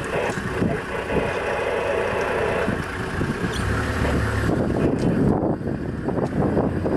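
Vehicle engine idling steadily, with wind gusting on the microphone from about halfway through.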